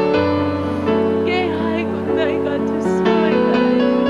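Slow, gentle worship music: a keyboard holds sustained chords over a long low bass note, with a few short wavering vocal lines rising over them.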